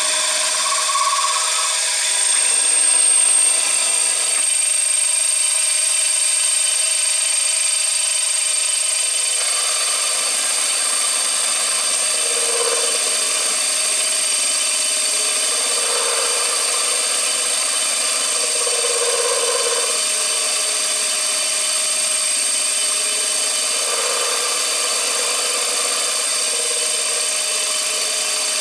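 CNC machine running steadily, a continuous machine whine with a strong high tone. There are a few short swells in the middle.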